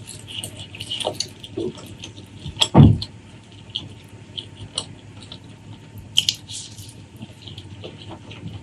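Close-miked eating: wet chewing, smacking and lip clicks of a person eating braised food, with a louder low thud about three seconds in.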